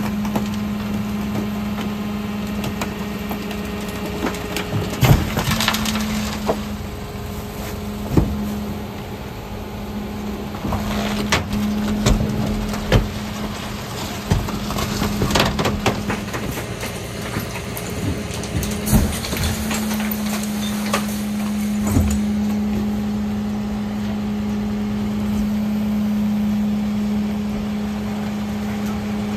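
A refuse lorry's rear packer (Faun Variopress body) crushes a mattress over a steady hydraulic hum. Irregular sharp cracks and snaps come through as the mattress breaks up, most of them in the first two-thirds.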